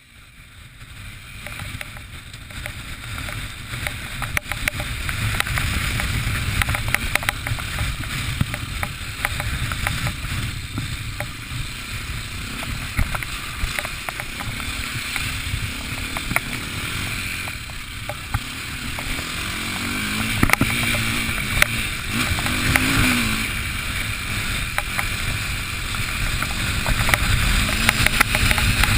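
Strong wind buffeting the microphone: a steady low rumble with crackles, swelling in gusts.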